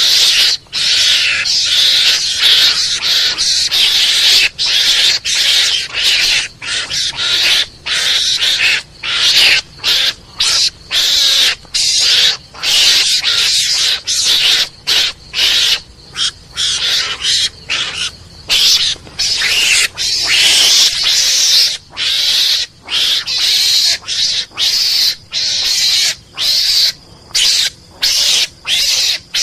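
Mongoose (garangan) calls used as a hunting lure: loud, harsh chattering squeals in quick runs, broken by many brief pauses.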